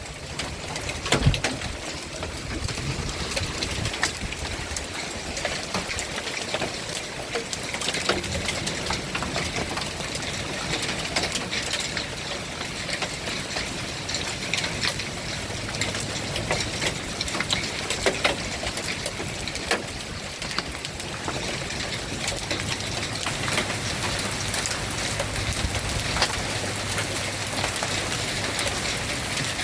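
Hailstorm: hailstones striking hard surfaces in a dense, steady clatter of sharp ticks over a rain-like hiss.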